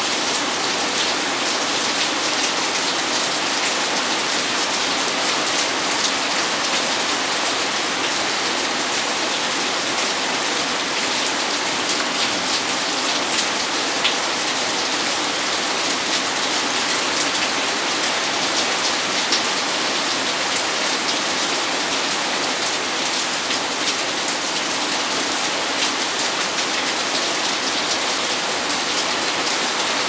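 Heavy tropical rain pouring steadily, an even hiss of rainfall dotted with the sharp taps of individual drops striking nearby surfaces.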